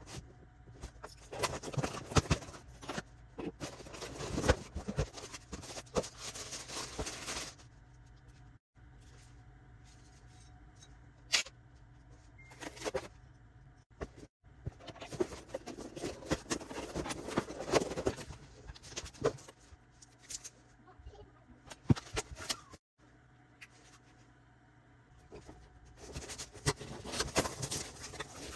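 Power tool boxes and packaging being handled and opened: bursts of rustling and scraping with sharp clicks and knocks, broken by quieter pauses.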